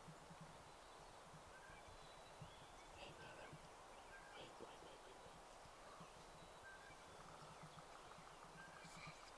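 Near silence in woodland, with faint, scattered short songbird chirps.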